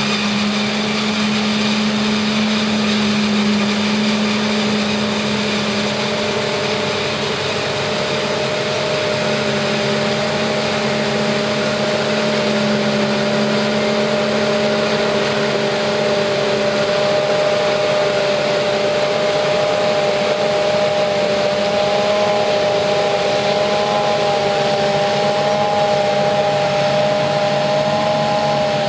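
New Holland FR9060 forage harvester running steadily under load, chopping maize and blowing it through its spout into a truck trailer, with a truck engine running alongside. A steady machine hum with several held tones, a higher whine joining about a third of the way through.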